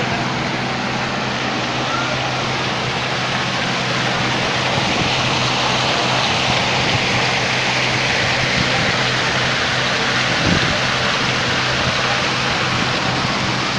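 Water from a small artificial rock waterfall splashing steadily into a garden pond: an even rushing hiss that grows a little louder in the middle as it comes closer.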